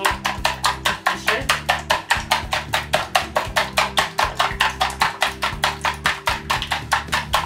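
Eggs being beaten by hand in a plastic bowl: a quick, even tapping of the utensil against the bowl, about five or six strokes a second. A background music track with a bass line plays underneath.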